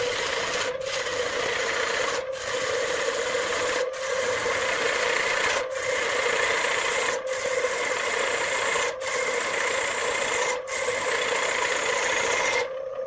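A hand-held turning tool cutting into a wooden blank spinning on a wood lathe: a continuous loud scraping hiss over a steady tone, with brief breaks about every one and a half seconds. The cutting sound stops abruptly near the end.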